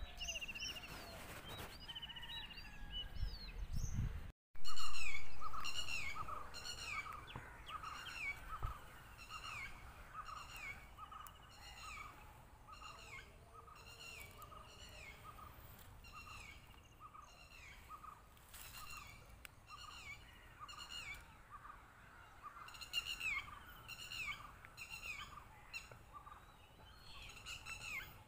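A bird calling over and over, a short falling note about twice a second, with other scattered bird calls and a low wind rumble in the first few seconds. About four seconds in, the sound drops out briefly and then comes back with a loud burst that fades over a second or two.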